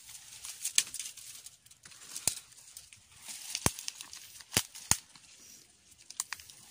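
Footsteps crunching through dry leaf litter and twigs, with leaves brushing past, in short bursts of rustling. About four sharp snaps stand out through the middle.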